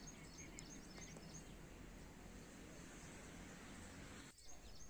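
Near silence: faint outdoor background noise with a few faint, short bird chirps.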